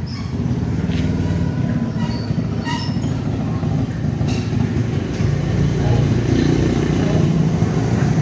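Steady low rumble of a motor vehicle's engine running, swelling a little after about five seconds, with a few faint clicks.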